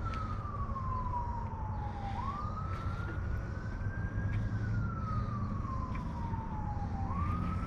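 An emergency vehicle's siren wailing: one tone that slides slowly down in pitch for a few seconds, sweeps quickly back up, and climbs again, about one and a half cycles, over a steady low rumble.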